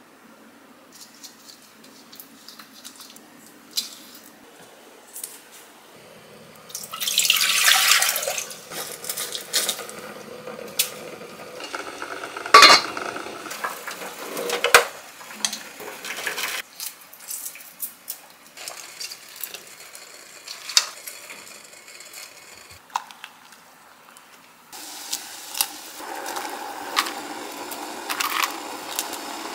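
Kitchen handling sounds: utensils and dishes clinking and knocking, and tap water running over eggs in a plastic colander in a steel sink. Near the end a steady cooking noise sets in from the enamel pot of sauce on the stove.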